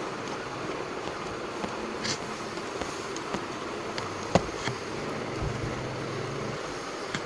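Plastic speed cube being handled and turned, giving scattered sharp clicks and clacks, the loudest about four seconds in, over a steady background hiss.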